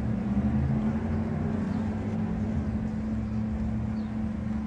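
A clustered swarm of honeybees buzzing, a steady, even drone from the massed bees.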